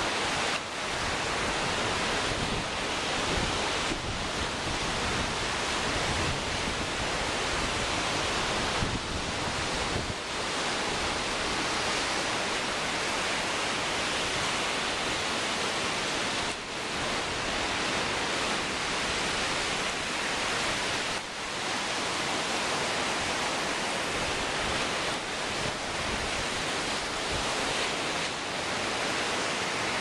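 Strong gusting wind buffeting the microphone over storm waves breaking on a lakeshore. A steady rush of noise, with a few brief lulls.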